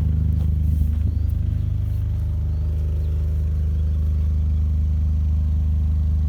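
6 kVA portable engine-driven generator running at a steady speed.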